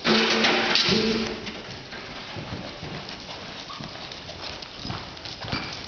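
Horse cantering after a steer in soft arena dirt: dull, uneven hoofbeats. Two short, loud cries come in the first second or so.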